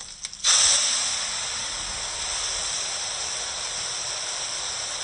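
Pressure-cooked chicken and its gravy sizzling as they are poured into a frying pan of hot masala. A sudden loud hiss starts about half a second in and settles into a steady sizzle.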